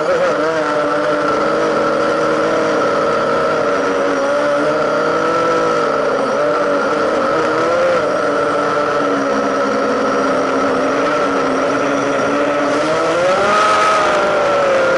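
A drone's electric motors and propellers running steadily and loudly, heard close up from the aircraft itself; the whine wavers in pitch as the motor speed changes and rises briefly near the end.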